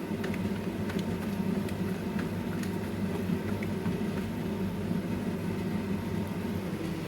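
A steady low hum with a few faint, light clicks.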